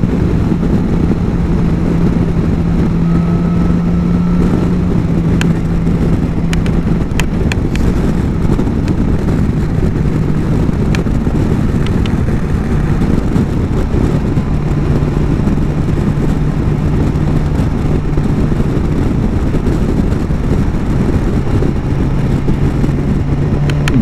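BMW S1000 XR's inline-four engine at a steady highway cruise, its note easing down a little after about five seconds and then holding, under heavy wind rush on the helmet-mounted microphone.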